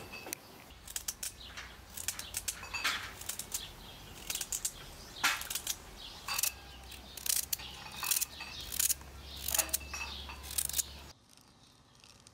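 Kitchen knife cutting pieces off a raw carrot held in the hand, each cut a crisp snap at irregular intervals; the cutting stops about a second before the end.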